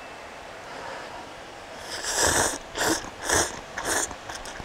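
A person slurping instant ramen noodles: about five short, hissing slurps roughly half a second apart, starting about two seconds in.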